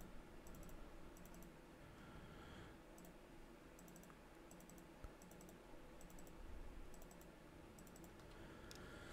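Faint computer mouse clicks in near silence, mostly in quick pairs and small clusters of double-clicks, as curve nodes are double-clicked one after another.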